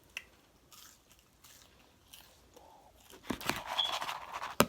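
Close-up crunching and chewing of food. A few faint clicks, then a dense crackly crunch lasting about a second near the end, closing on a sharp click.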